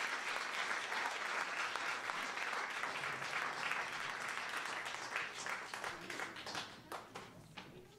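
Audience applauding, dying away to a few scattered claps near the end.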